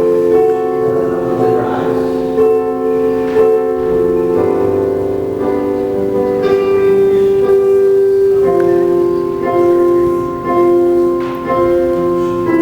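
Soft keyboard music with sustained chords that change every second or so, a slow instrumental backing.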